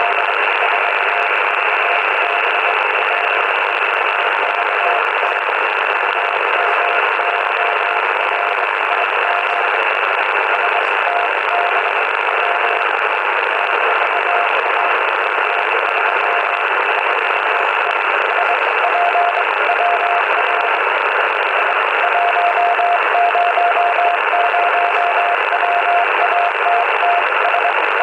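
Morse code (CW) received on the 40 m band through a Yaesu FT-80C shortwave transceiver's speaker: a single tone of about 700 Hz keyed in dots and dashes over steady band hiss. The signal is weaker around the middle and comes in strongest near the end.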